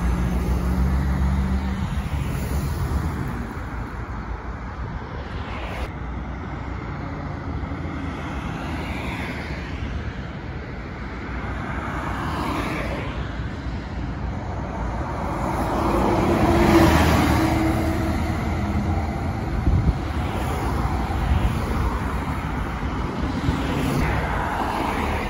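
Passing road traffic. A bus engine hums low as the bus pulls away near the start, then cars go by one after another, each swelling and fading, the loudest about two-thirds of the way through.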